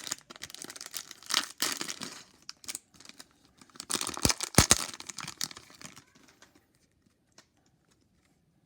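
Plastic cello wrapper of a trading-card fat pack being crinkled and torn open, in two louder tearing spells about a second and a half and about four seconds in.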